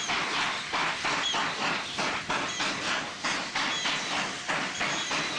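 Steam locomotive, a Wankie Colliery 4-8-2 tender engine, working slowly with its exhaust beating in an even rhythm of about two and a half chuffs a second, with steam hissing from the cylinders. Faint short chirps recur over the beats.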